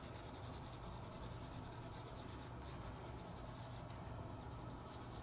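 Graphite pencil shading on sketchbook paper: fast, continuous scratchy back-and-forth strokes, faint.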